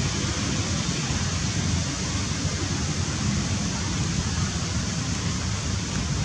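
Steady rushing outdoor noise with a fluttering low rumble underneath, with no distinct calls or knocks.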